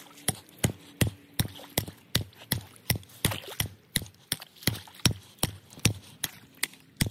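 A steel pipe wrench striking and cracking the ice crust on a plastic stock tank, in rapid, evenly spaced blows of about two and a half a second.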